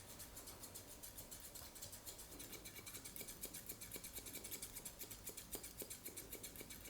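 Grooming scissors snipping rapidly and evenly through a Shetland sheepdog's coat during a trim, several faint crisp snips a second.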